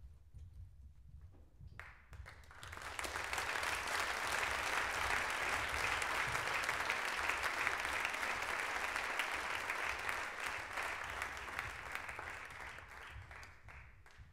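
Audience applauding: the clapping breaks out about two seconds in, swells, and slowly dies away near the end.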